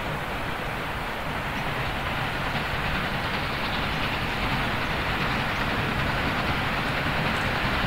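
Steam locomotive hauling a train on approach, its exhaust and running noise steady and growing slowly louder.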